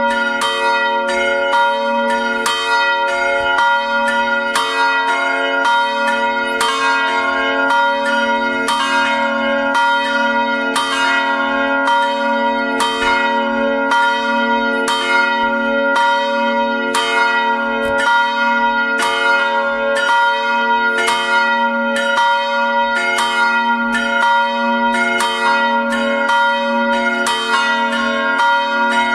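Three bronze church bells, cast by the Felczyński foundry in Taciszów in 1987–88 with strike notes of B♭, C♯ and F♯, swinging and ringing together in full peal. Their strikes overlap in a steady, unbroken stream, several a second, each note ringing on into the next.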